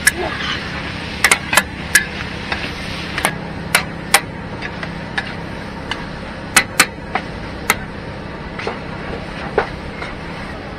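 Two metal ladles clinking and scraping against a large wok while stir-frying noodles: irregular sharp clinks, several close together near the start and again around two-thirds of the way through, over a steady hiss of frying.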